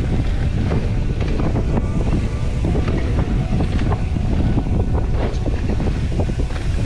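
Mountain bike rolling fast down a rough dirt trail, its tyres, chain and frame clattering in constant small knocks over the bumps, under loud wind buffeting the camera's microphone.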